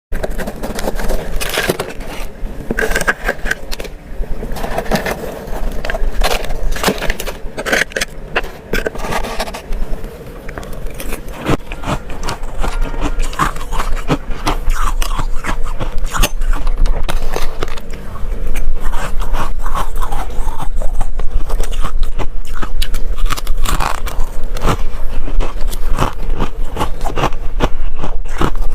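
Freezer frost being scraped up and crunched between the teeth, close to the microphone: a dense run of crackly crunches and scraping, getting louder about two-thirds of the way through.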